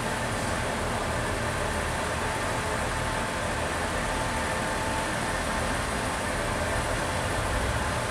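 Class 143 Pacer diesel multiple unit standing at the platform with its underfloor Cummins diesel engine idling steadily, a low, even rumble with a faint steady hum over it.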